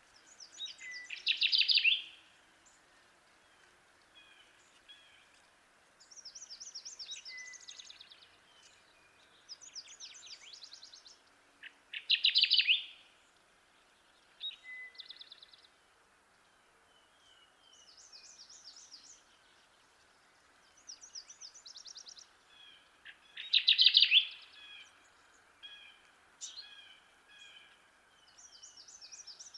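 Kirtland's warbler singing its loud, short song three times, about every eleven or twelve seconds. Fainter, rapid, high-pitched bird phrases come in between over a steady background hiss.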